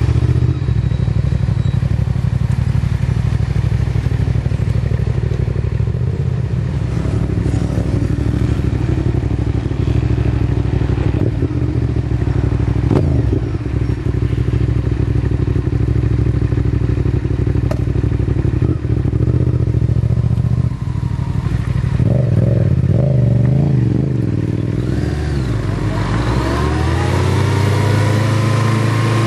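Motorcycle engine running steadily, its pitch wavering briefly and then climbing near the end as the revs rise.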